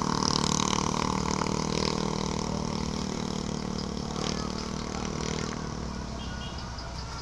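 RC boat's 4000kv brushless electric motor on a 3S battery running flat out, a steady motor drone that fades after about five and a half seconds.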